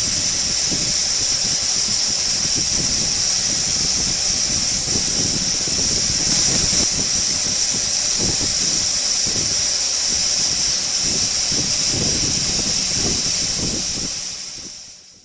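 Urschel Comitrol Model 1700 food mill running at speed while milling desiccated coconut: a steady high-pitched whine over an uneven low rumble. The sound fades out near the end.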